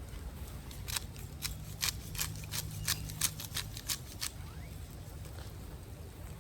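A quick run of about a dozen short, sharp clicks or snips over roughly three seconds, starting about a second in and then stopping.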